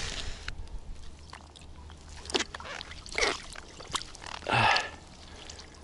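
A man's short effortful grunts and breaths, three of them, as he hauls a pike up through a hole in the ice by hand on the line.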